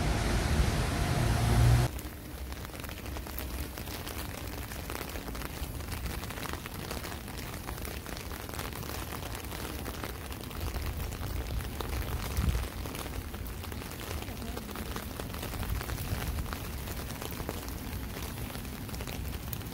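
Motor traffic on a wet highway runs loudly for about two seconds and cuts off abruptly. After that, rain falls steadily onto a wet city sidewalk, a soft hiss sprinkled with fine drop ticks. There is a brief thump about twelve seconds in.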